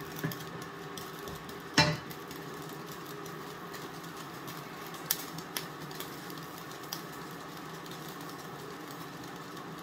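Kitchen background while food cooks on the hob: a steady hum, with one sharp knock about two seconds in and a few lighter clicks later, as of utensils or containers being handled.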